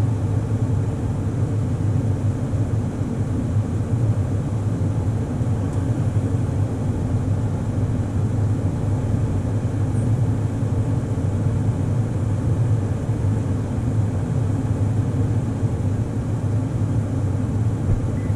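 Toyota Tacoma pickup's engine idling steadily: an even low hum.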